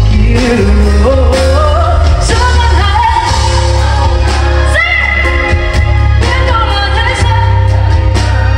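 Live pop song: a singer's voice over a band with heavy bass, recorded loud from the audience. The sung line slides upward early on, then a long note is held about halfway through.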